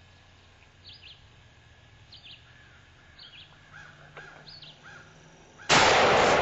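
Birds calling in woodland: a short, high chirp that falls in pitch, repeated about once a second, with lower arched calls in between. Near the end, loud plucked-string music cuts in abruptly.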